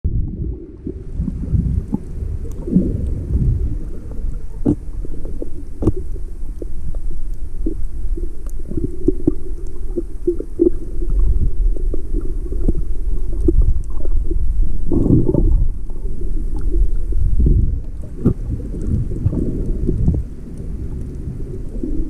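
Underwater sound picked up by a submerged camera: a low, muffled rumble of moving water with scattered sharp clicks and crackles, and a few louder swells.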